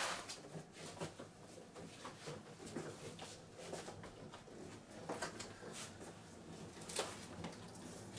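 Scattered knocks, shuffling footsteps and cloth rustling as movers carry a padded upright piano down a hallway and out through a doorway, with a sharper knock near the end.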